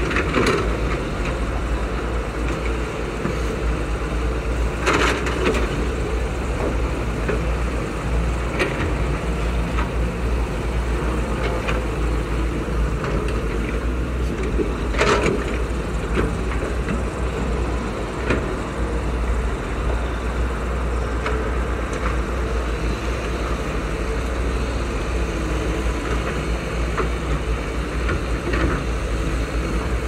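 Caterpillar hydraulic excavators working together, their diesel engines running steadily with a low rumble, broken by occasional knocks and cracks of buckets digging and dumping mud and soil, the sharpest about five and fifteen seconds in.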